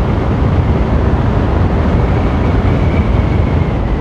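Motorcycle riding at speed: a heavy, steady rush of wind buffeting the rider's microphone, with the bike's engine running underneath.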